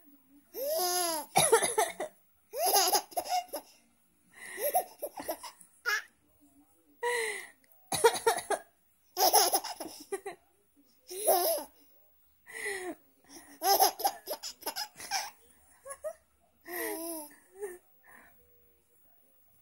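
A baby laughing in short, separate bursts over and over, in answer to an adult's coughs.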